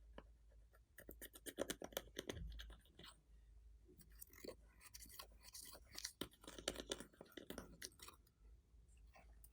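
Glossy slime being squished and kneaded by hand, giving faint sticky clicks and small crackling pops. They come in two spells, about one to three seconds in and again from about four to eight seconds.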